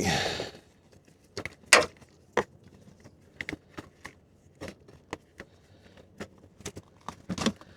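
Scattered sharp clicks and light knocks of an LED headlight bulb and its parts being handled and worked into the headlight housing, the sharpest click about two seconds in and a quick cluster near the end.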